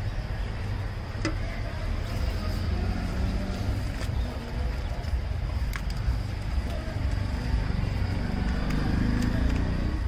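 Roadside street ambience: a steady low rumble of passing traffic with indistinct voices, and a few light clicks from utensils at the stall.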